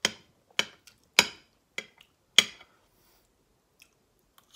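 Metal fork clinking against a ceramic plate while spearing pasta: five sharp clinks about half a second apart, then quiet.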